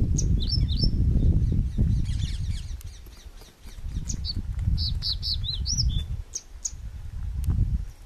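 Male crested bunting giving short, sharp, high chik calls: a couple about half a second in, then a quick run of several between about four and six and a half seconds in. A loud low rumble runs underneath, dropping away for a moment near the middle.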